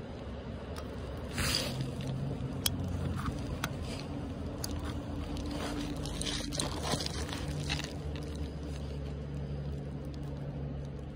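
Close handling noise as fishing line and a bobber are worked by hand against the phone: fabric rubbing, scrapes and a few sharp clicks, busiest about a second in and again past the middle. A steady low hum runs underneath.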